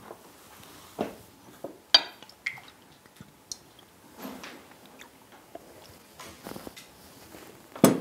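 Scattered light clinks and knocks of a glass bottle and dishes being handled on a table, with a sharp click near the end.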